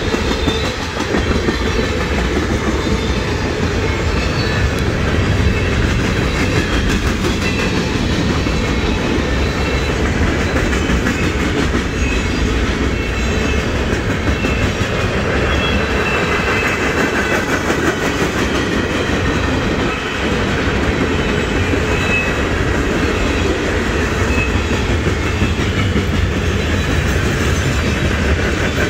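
Freight cars of a CSX mixed freight train rolling steadily past, a continuous rumble with the rapid clickety-clack of steel wheels over rail joints.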